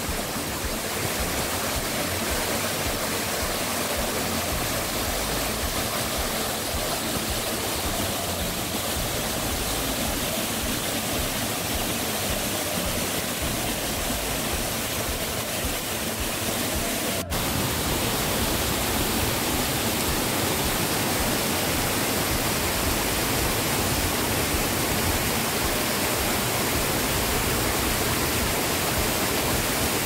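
Steady rush of falling water from a mountain waterfall and its small cascades, a dense even noise. About seventeen seconds in it breaks off for an instant and comes back slightly louder.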